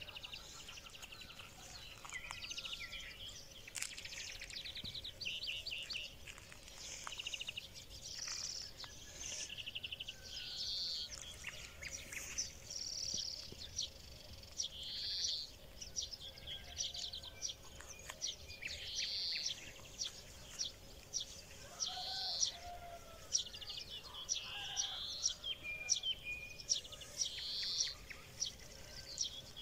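Small songbirds singing: short, high chirping phrases repeating every second or two, with scattered sharp ticks that come more often near the end.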